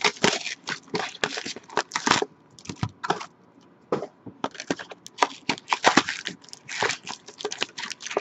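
Trading-card pack being torn open by hand, its thin cardboard box and foil wrapper crackling and tearing in quick, irregular bursts.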